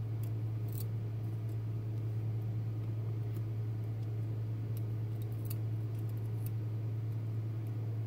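Faint, scattered light clicks of steel tweezers and small lock pins being worked out of a brass lock cylinder housing, over a steady low hum.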